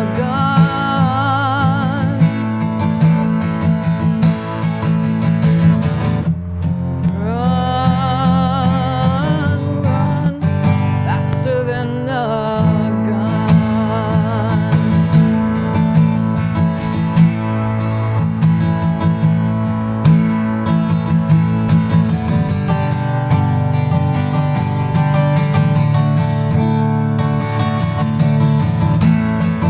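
Acoustic guitar strummed steadily under a woman's singing voice, which holds long notes with vibrato in a few phrases during the first half; after that the guitar plays on alone.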